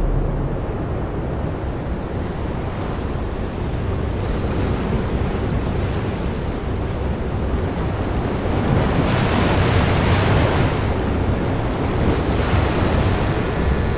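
Ocean surf washing in and breaking on a rocky shore, a steady rush of water that surges louder about nine seconds in and again near the end.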